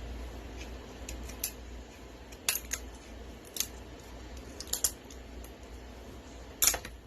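Scissors snipping and cracking through a blue crab's shell: several sharp, irregular crunching clicks, the loudest near the end.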